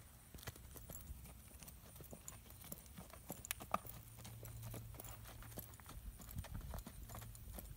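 Quarter Horse gelding walking on arena dirt: soft, irregular hoofbeats, a few a second, mixed with the handler's footsteps, over a low rumble.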